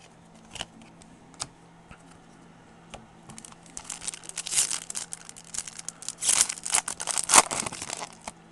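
Baseball trading cards being handled and flipped through by hand: a few light clicks, then from about three seconds in a stretch of dense crinkling and rustling.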